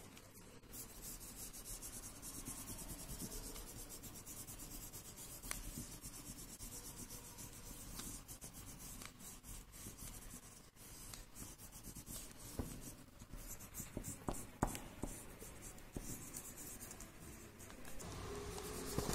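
Violet wax crayon scratching across paper laid over leaves, in many short back-and-forth strokes, as a leaf rubbing is shaded in.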